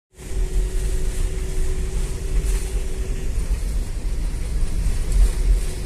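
Inside a moving bus: steady low engine and road rumble, with a faint constant hum that drops out about halfway through.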